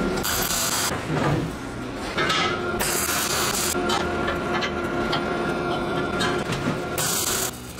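Arc welding on a steel square-tube frame: several short bursts of crackling hiss, each under a second and starting and stopping abruptly, as tack welds are laid. A faint steady whine runs underneath.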